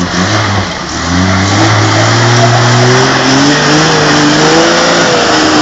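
Toyota Land Cruiser 80-series engine revving under load as the four-wheel drive climbs a steep rutted dirt track. The pitch rises over the first couple of seconds, holds high, then drops near the end, over a loud steady rush of noise.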